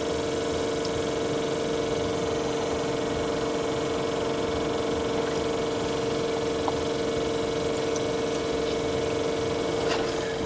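1977 GMC truck's engine idling steadily on gasoline poured from a bottle straight into the carburetor, because the truck's fuel system is not feeding it.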